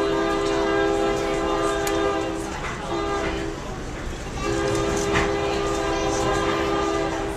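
Locomotive air horn sounding a chord of several tones, heard from inside a passenger car: a long blast that ends about two and a half seconds in, a short blast, then another long blast. The long, short, long run is the closing part of the standard grade-crossing horn signal.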